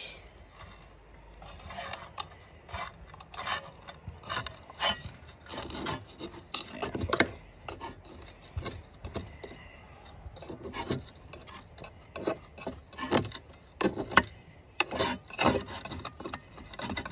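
A small metal tool scraping and prying at a toasted sandwich stuck fast inside a hobo pie maker (pie iron), in short, irregular rasping strokes about one or two a second. The bread has stuck to the unbuttered plates of the iron.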